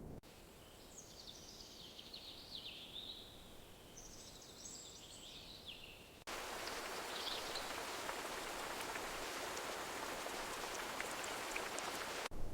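Faint birdsong, quick chirping and warbling phrases, for about the first six seconds. It then cuts abruptly to a steady hiss of falling water with scattered drops, like rain.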